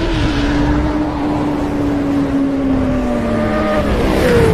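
Engine sound effect in a channel intro: a steady engine note that slowly falls in pitch, with a higher tone dropping near the end.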